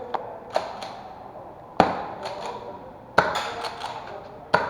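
Gas-powered airsoft revolver being fired: three sharp shots about 1.4 s apart, with lighter clicks of the action between them.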